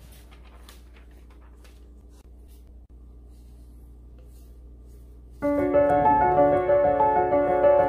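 Piano background music that comes in suddenly about five seconds in and plays on. Before it there is only a low steady hum with a few faint clicks.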